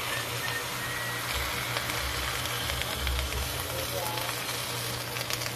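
Winged beans and mussels sizzling steadily in a hot wok as coconut milk is poured over them. A few light clicks come near the end.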